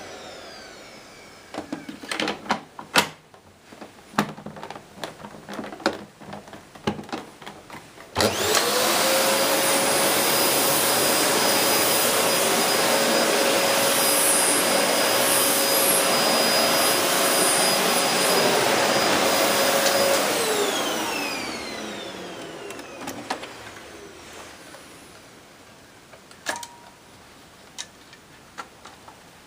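LG VC1016NNT bagless cylinder vacuum cleaner, a 1400 W compact model. It is switched on about a quarter of the way in, its motor whining up to speed and then running steadily for about twelve seconds. It is then switched off, and the motor winds down with a falling whine. Scattered clicks and knocks of the machine being handled come before and after.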